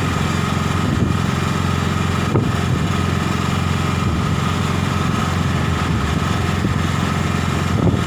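Autorickshaw's small engine running steadily on the move, with a few brief knocks along the way.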